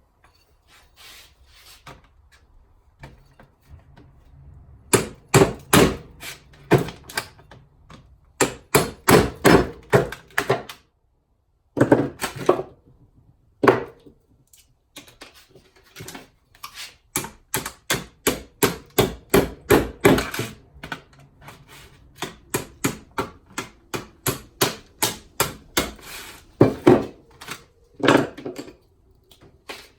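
Rapid runs of hard knocks and thwacks, about three or four blows a second, broken by short pauses, as something is struck over and over.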